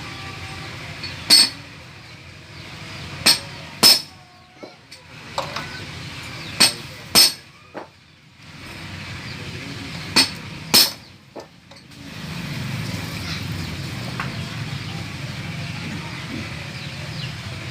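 Sharp metallic clinks and taps of tools against metal engine parts while a motorcycle engine is being assembled: about seven loud strikes, mostly in close pairs, with lighter ticks between, over the first eleven seconds. After that only a steady low background rumble remains.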